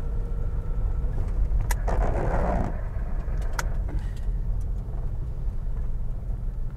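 Interior sound of a 1969 Opel Rekord C 1900 on the move: its 1.9-litre four-cylinder engine and the road noise give a steady low rumble, with a brief hiss about two seconds in and a couple of faint clicks. The engine is pulling without stalling, its Solex carburetor fault fixed.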